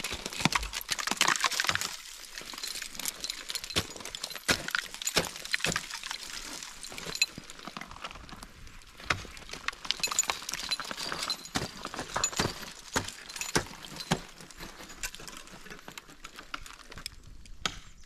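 Ice and crusty snow crunching and breaking underfoot, with many irregular crisp crunches and glassy clinks.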